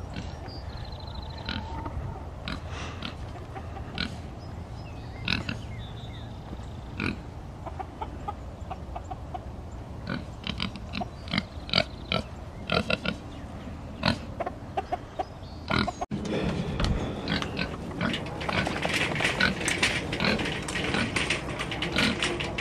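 A pig grunting and oinking, with many short sharp rattles from a steel-mesh utility cart being pulled over rough ground.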